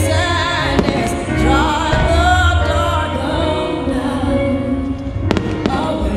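A song with singing plays as the music track of a pyromusical fireworks display. Firework shells go off over it with sharp bangs, the loudest two close together about five seconds in.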